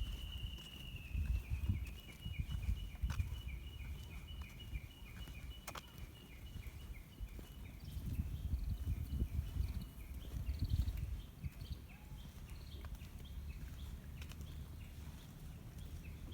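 Gusty low wind rumble on the microphone. Over it, a long high-pitched trill with rapid pulses runs for about the first ten seconds, then fades out.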